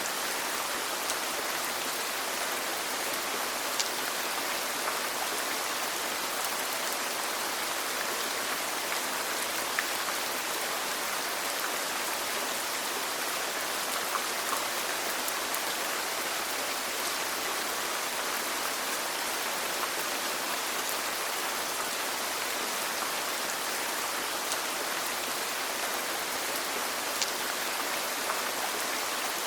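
Steady rain falling, an even hiss with scattered drop ticks standing out now and then.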